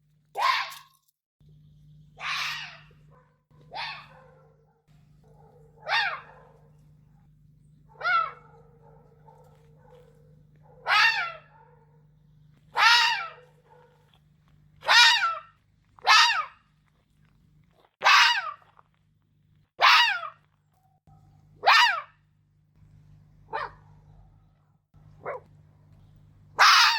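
Red fox barking: about fifteen short single barks, each dropping in pitch, repeated every one and a half to two seconds.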